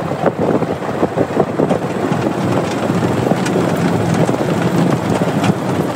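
Golf cart driving along a gravel lane: wind buffeting the microphone over a dense, rough rattle and crunch of the cart on the gravel.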